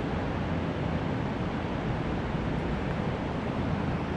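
Steady rushing hum of an underground station platform beside a standing Keisei Skyliner, with no distinct events.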